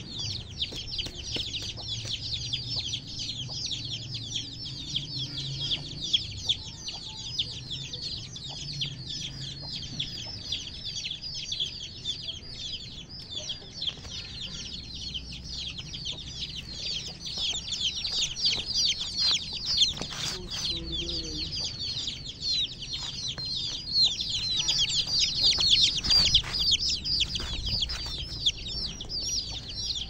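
A flock of month-old Aseel chicks peeping nonstop, many short, high, falling cheeps overlapping, growing louder about three-quarters of the way through.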